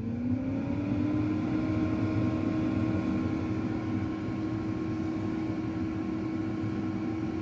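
Khind ARF9500 air fryer oven's high-speed convection fan starting up, its hum rising in pitch over the first second, then running at a steady, noisy whir.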